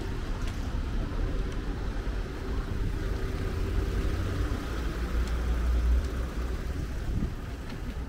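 Road traffic: a motor vehicle running close by, a steady engine hum through the first half over a low rumble that is loudest about five to six seconds in.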